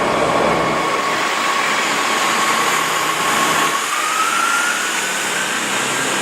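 Diesel passenger train running at the platform, a steady engine noise with a thin whine that rises in pitch about four seconds in.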